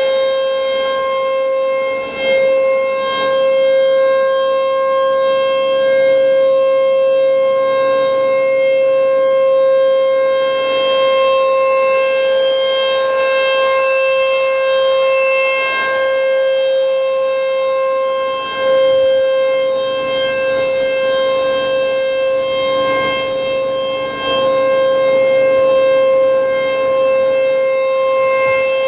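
ASC T-128 outdoor warning (tornado) siren sounding its monthly test with one steady, unchanging pitch and a rich set of overtones. Its loudness wavers slightly, dipping briefly a few times.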